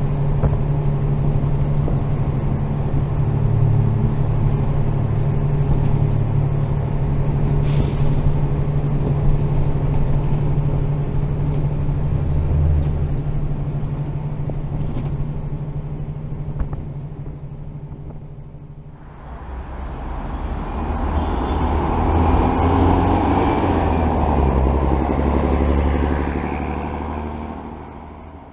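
City bus diesel engine running as the bus drives along, heard from inside the passenger cabin as a steady low hum. About two-thirds through, the hum dips and gives way to a louder rushing noise that fades again near the end.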